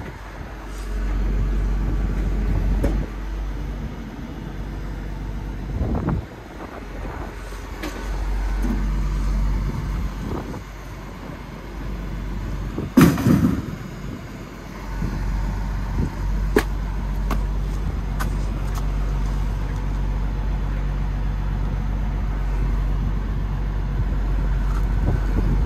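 Diesel engine of a lorry-mounted crane truck running steadily, its loudness swelling and dipping as the crane works, with a few sharp knocks, the loudest about halfway through.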